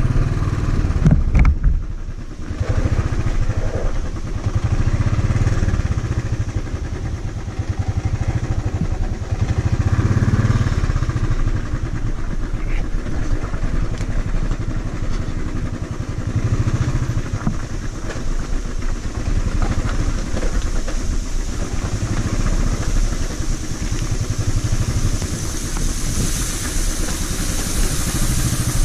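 A vehicle engine running steadily while on the move, its level rising and falling. A high hiss grows near the end.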